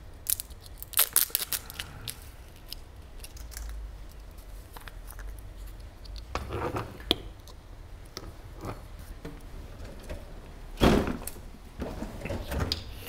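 Kitchen handling noises: scattered light clicks and knocks of a bottle and utensils being picked up and set down on a counter, with a louder clatter near the end.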